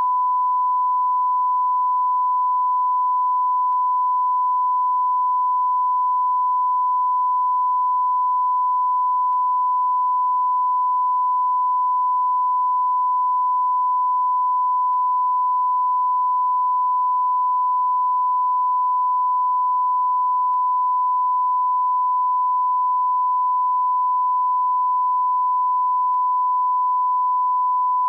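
A beep sound effect: one continuous sine-wave tone held at a single steady pitch and level, unbroken.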